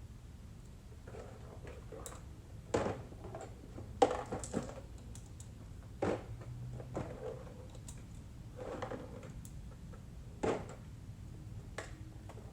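Irregular small metal clicks and taps as rotary-engine corner seals are pried out of the rotor and handled, the sharpest about four seconds in, over a faint steady hum.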